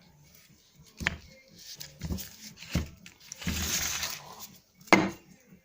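Metal parts of an AC compressor clutch being handled on a bench: several sharp clinks and knocks, the loudest near the end, with a brief scrape or rustle just after the middle.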